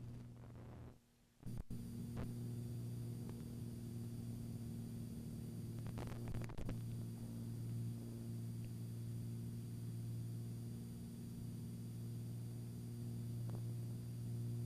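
Steady low drone and hum inside the cockpit of a small aerobatic plane in flight, briefly cutting out about a second in, with a few faint clicks near the middle.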